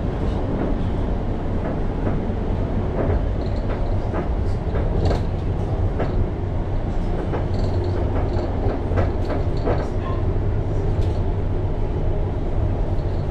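Cabin running noise of a London Overground Class 710 electric train moving along the line: a steady low rumble of wheels on rail, with scattered clicks and knocks.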